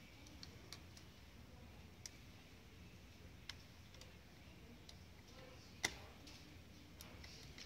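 Small screws and parts being fitted by hand into a salt mill's lower assembly: a few faint, scattered clicks, the sharpest about six seconds in.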